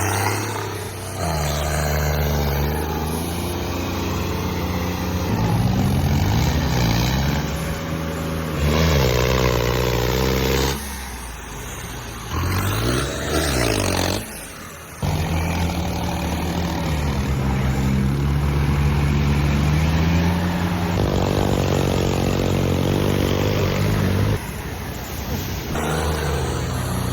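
Heavy diesel engine revving up and down, its pitch rising and falling again and again, with a couple of abrupt jumps in the sound.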